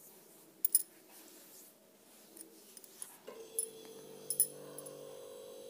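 A metal spoon stirring chickpeas in an aluminium pressure cooker, scraping and clinking against the pot a few times. About three seconds in, a steady hum starts and carries on.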